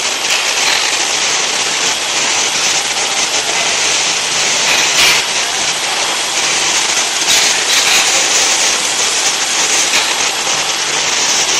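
BOPP film coating machine running: a steady, loud hiss with a faint low hum underneath and a few brief louder ticks.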